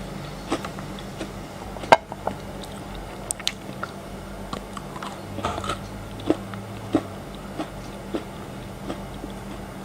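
Close-miked biting and chewing of frozen chocolate: a sharp crack about two seconds in, then irregular crunches every half second to a second.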